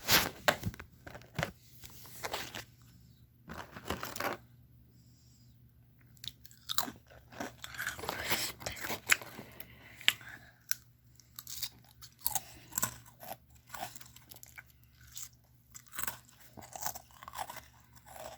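A child biting into and chewing a crunchy dalgona-style potato snack: a sharp crunch at the first bite, more crunches, a brief pause about five seconds in, then steady crunchy chewing.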